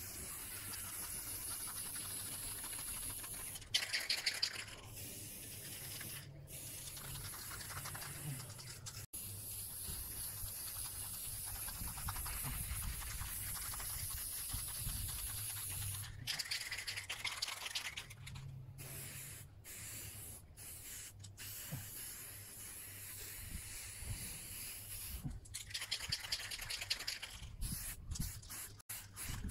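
Aerosol spray-paint can spraying in long hissing passes, with a few short, louder bursts and some quick stops and starts near the end.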